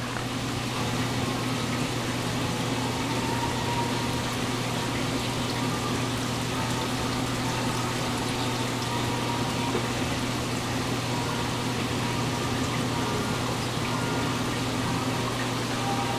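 Aquarium pump and filter return running: a steady low hum under the constant rush of water and bubbles from the outlet pipe.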